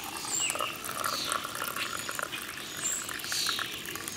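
Hot coffee being poured from a pour-over coffee carafe into a cup: a steady stream of liquid filling it.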